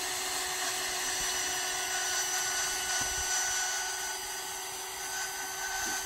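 Cordless drill running steadily in low gear, driving a drill-powered log turner that rolls a heavy log. The motor gives a steady whine that stops at the end.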